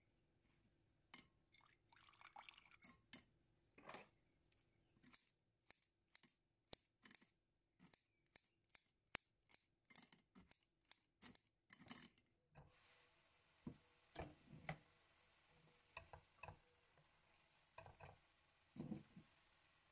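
Faint kitchen food-preparation sounds: a quick run of small sharp clicks, about two or three a second, then after a cut a few scattered duller knocks.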